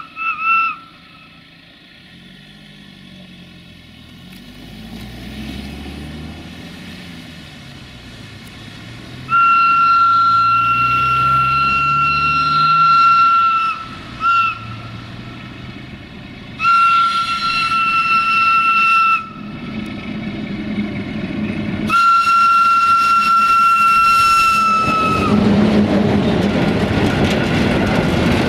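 Electroputere 060-DA (LDE2100) diesel-electric locomotive's whistle blowing a steady single-pitched note in four blasts: one of about four seconds, a short toot, then two of about three seconds, with the diesel engine's note rising and falling underneath. About 25 seconds in the locomotive passes and the freight wagons roll by, loud, with the clickety-clack of wheels over rail joints.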